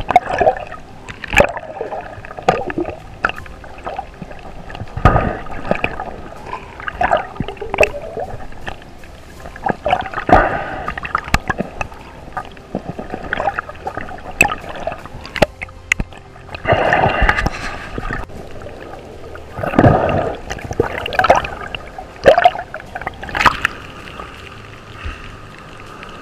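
Water heard underwater: gurgling and bubbling in irregular surges, with scattered sharp clicks and knocks as the speared fish is handled.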